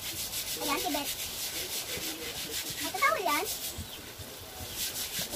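Plastic bags and wrapping rustling and crinkling in quick, scratchy strokes as packed items are handled and lifted out of a cardboard box.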